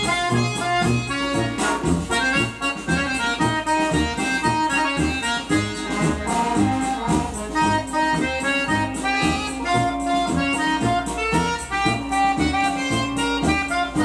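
Accordion-led Brazilian festa junina music with a backing band and a steady beat, played from a vinyl LP on a turntable.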